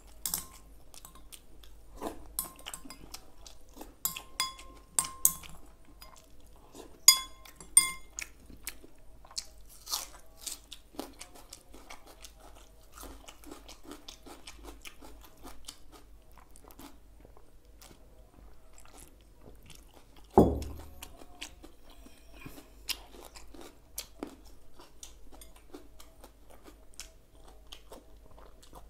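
Close-miked chewing and crunching of food. In the first several seconds there are a few ringing clinks of a spoon against a glass bowl, and about twenty seconds in a single heavy thump is the loudest sound.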